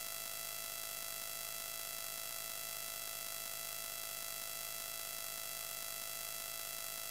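Steady electronic static hiss with faint, unchanging whining tones layered through it. No event or change; no soundtrack from the film on screen is heard.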